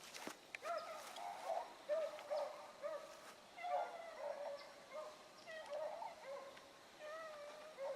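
Rabbit-hunting beagles baying on a running rabbit's trail: a steady chorus of repeated, overlapping calls from the pack, heard at a distance.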